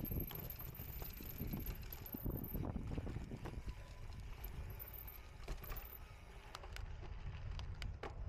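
A cyclocross bike being ridden over rough ground: a steady low rumble of wind and tyres, with scattered clicks and rattles from the chain and frame over bumps.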